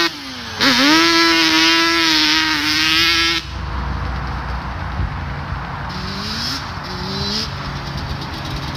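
Yamaha Banshee's 350 twin two-stroke engine revving hard as the quad pulls away. The note dips briefly at the start, then climbs and holds high. A little over three seconds in it drops suddenly to a quieter, more distant quad engine that rises and falls in pitch.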